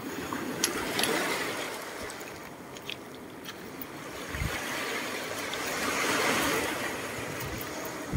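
Small waves washing onto a pebble beach, swelling twice, with the hiss of water running back through the stones. A few light clicks sound over it.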